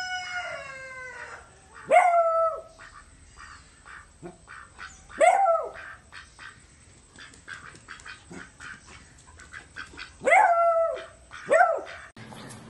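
Beagle barking at a duck: four loud barks, each starting sharply and held about half a second, spaced a few seconds apart with two close together near the end. Faint short ticks come between the barks.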